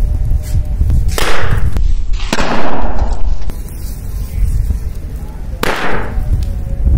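Firecrackers bursting in a fire of burning sugarcane trash in an iron wok. There are three loud bursts, the first two about a second apart and the third a few seconds later, each fading quickly. Heavy wind rumble on the microphone runs under them.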